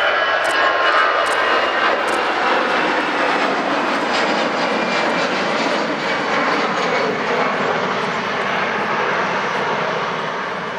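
Airliner's engines running loud and steady as it passes, with a high whine in the first couple of seconds, then slowly fading.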